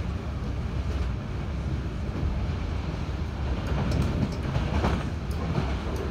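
Z 20500 double-deck electric commuter train heard from inside the carriage while running: a steady low rumble of wheels on rail. A few sharp wheel clicks over the track come between about four and five seconds in.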